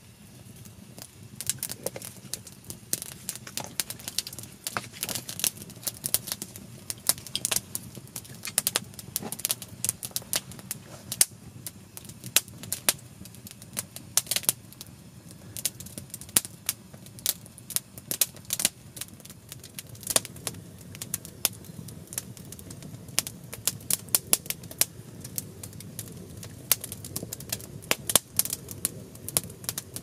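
Campfire of split firewood crackling, with many sharp irregular pops and snaps several times a second over a low steady rush of the flames.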